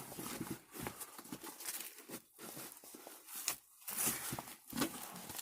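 A roll-up carrying case being rolled up around a set of pliers: irregular rustling and scuffing, with a few short knocks and a louder rustle about four seconds in.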